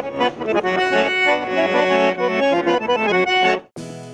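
Chromatic button accordion playing a tune with fast-changing notes and chords. It cuts off abruptly near the end, and quieter music with plucked notes takes over.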